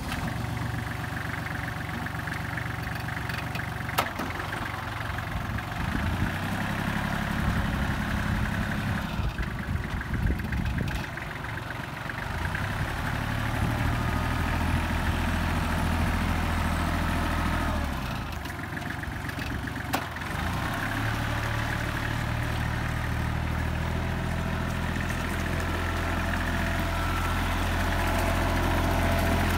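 Kubota GL21 compact tractor's three-cylinder diesel engine running as the tractor drives around. The engine note shifts in pitch and loudness several times, and there is a sharp click about four seconds in and another about twenty seconds in.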